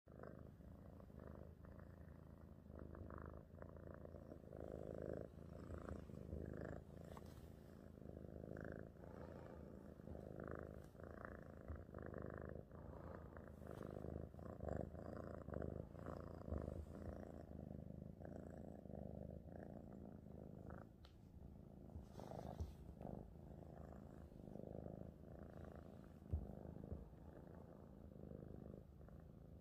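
Balinese cat purring steadily and faintly while it is stroked on the head, a content purr. One brief bump about three-quarters of the way through.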